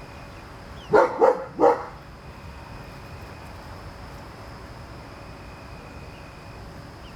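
A dog barks three times in quick succession, loud, about a second in.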